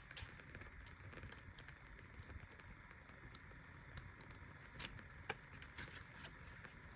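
Faint, scattered soft ticks and rustles of paper pages being flipped through in a card deck's guidebook.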